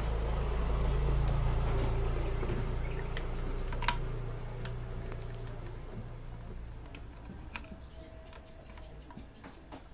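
Light clicks and taps of a plastic motorcycle mudguard and its metal brackets being handled and fitted together, over a low rumble that fades away over several seconds.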